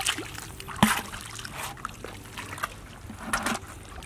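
Shallow muddy water splashing and sloshing as bare feet and hands stir through it, in irregular short splashes, with one sharp slap about a second in.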